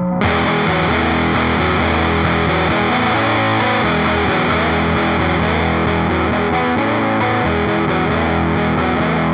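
Electric guitar played through a Supercool 77 Fuzz Blender fuzz pedal, giving a thick, heavily distorted fuzz tone that starts abruptly just after the opening. About halfway through, as the pedal's Tar knob is turned, the top end thins slightly.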